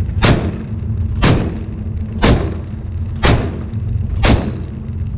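Warship's naval deck gun firing single shots about once a second, five sharp bangs over a steady low rumble.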